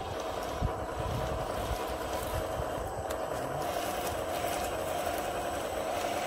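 Radio-controlled scale Cat D9 crawler running steadily as it creeps forward on its tracks over dry leaves, towing a loaded log trailer.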